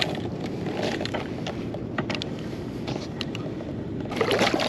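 Steady low wind and water noise around a small boat, with scattered light clicks and taps of fishing gear being handled.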